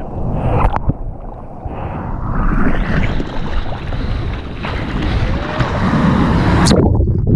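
Water splashing and churning close to a waterproof action camera at the waterline, with wind buffeting the microphone. Near the end the sound goes suddenly muffled for a moment as the camera dips under the water.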